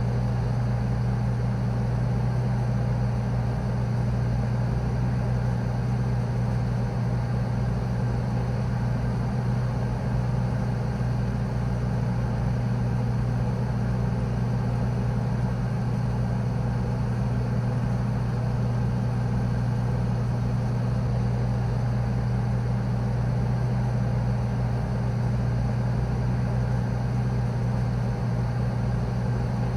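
Low, continuous hum of a morgue freezer's refrigeration unit: one strong deep tone over a rumble, with a faint hiss above, never changing.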